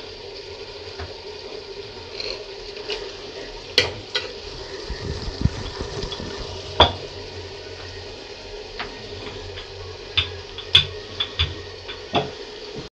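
Metal slotted spoon stirring liver curry in a pot, clinking sharply against the pot several times, most often in the last few seconds, over a steady sizzle from the pan.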